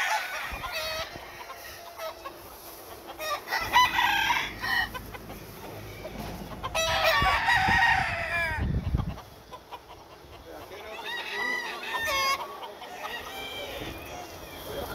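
Several gamecocks crowing in turn, with some clucking between the crows. The longest and loudest crow comes about seven seconds in, and a brief low rumble sounds just after it.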